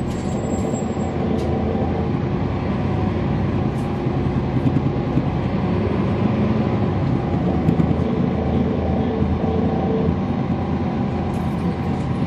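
Cummins ISL9 8.9-litre inline-six diesel of a 2012 NABI 40-foot transit bus running under way: a steady rumble with a faint whine, a little louder from about four seconds in.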